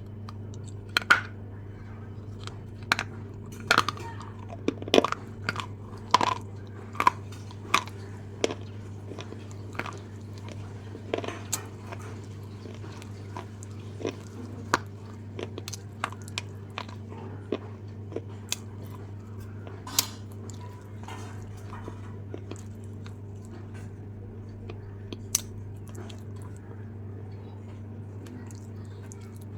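Red apple being bitten and chewed close to the microphone: sharp, crisp crunches come in quick succession through the first half, then grow fewer and further apart and stop a few seconds before the end.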